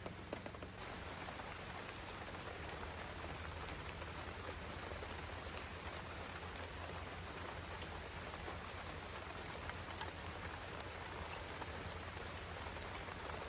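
Steady rain falling, with separate drops ticking on a nearby surface over an even hiss, and a low steady hum underneath.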